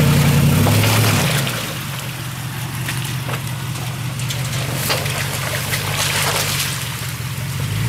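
SUV engine revving as it pushes into a muddy water hole, then easing off to a low, steady crawl about a second and a half in. Tyres churn through the mud while water sloshes and splashes around them.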